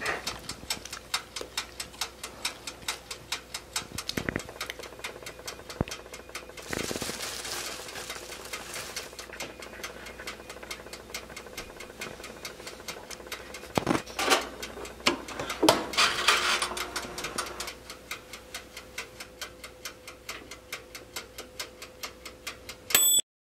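Mechanical dial timer of a Proctor Silex toaster oven ticking steadily, about four ticks a second, then a short bell ding near the end as the timer runs out. A few louder knocks and a rustle come about two-thirds through.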